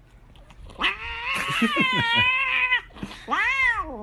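Domestic cat yowling twice: a long call of about two seconds with a wavering pitch, then a shorter call that rises and falls.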